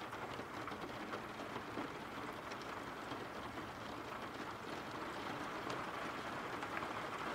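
Steady rain falling: an even, quiet hiss with faint scattered drop ticks.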